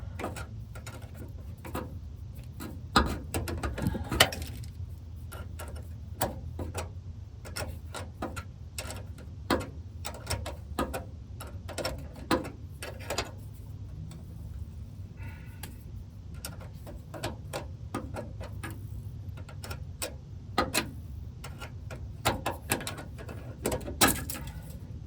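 Metal hand tools clicking and knocking irregularly against a truck's rear brake line fitting as they work on a stuck, stripped nut, over a steady low hum.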